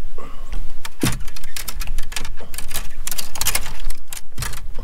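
A quick, irregular run of clicks, knocks and rattles, densest in the middle, over a steady low wind rumble on the microphone.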